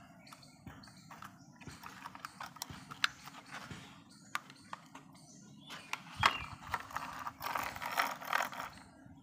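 Hard plastic toy truck parts clicking and knocking as they are handled and fitted together, with a few sharper snaps. Near the end comes a longer scraping rattle.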